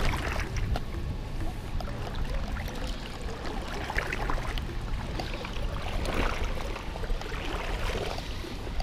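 River current rushing steadily close to the water, with scattered small splashes and a low rumble.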